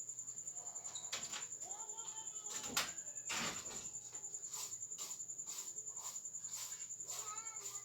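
Cricket chirring steadily at a high pitch, with a few faint chirps and a single sharp click about three seconds in.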